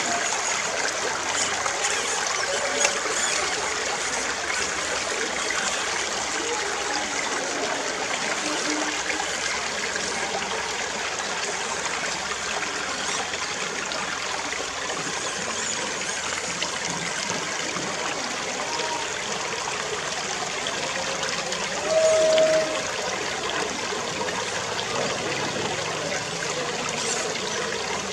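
Shallow creek water trickling and running over stones in a steady rush, with one brief, louder steady tone about three-quarters of the way through.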